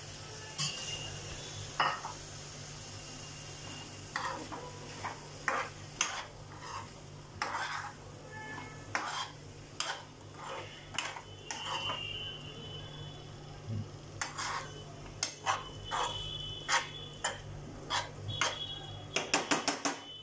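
Metal spoon scraping and clinking against a nonstick frying pan while potato cubes are stirred. The strokes come irregularly, then quicken into a rapid run of clicks near the end.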